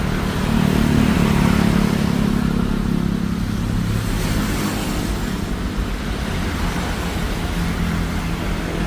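Steady low engine drone over a broad rushing noise, swelling a little between about one and five seconds in.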